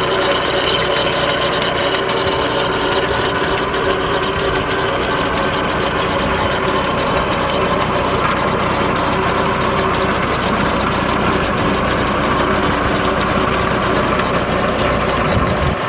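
Farmall 140 tractor's four-cylinder engine running steadily at an even speed, turning the flat belt that drives a buzz saw from the PTO, with the saw spinning free and not cutting.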